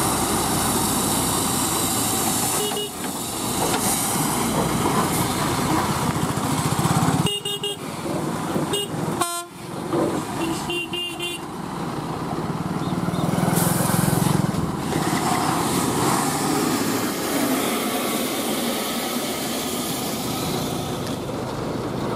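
Diesel engine of a heavily loaded multi-axle lorry running as it crawls over a rutted mud ramp, swelling louder a little past the middle. A vehicle horn honks briefly twice in the middle.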